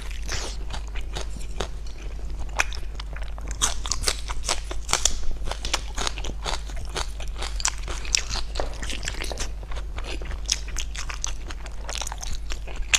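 Close-up eating sounds: a person biting and chewing crunchy food, with a dense, continuous run of crackling crunches over a steady low hum.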